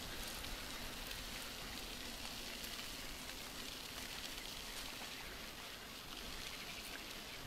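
Bicycle tyres rolling over a gravel path: a steady crackling hiss with a few faint ticks from the grit.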